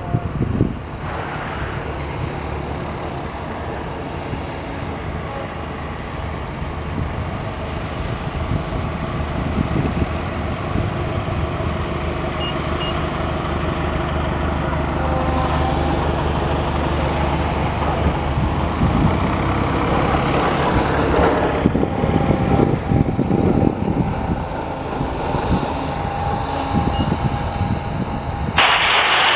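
Light aircraft's piston engine and propeller running at low power, getting louder over the first two-thirds and easing off after that. A short hissing burst comes just before the end.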